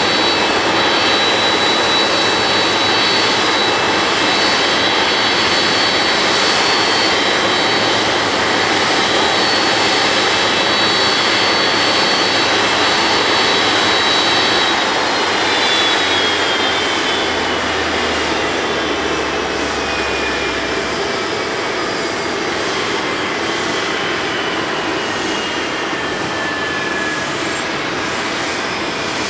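Jet airliner engines running with a steady high whine over a broad rush. About halfway through the whine starts falling slowly in pitch as the engines wind down, with the aircraft at its gate.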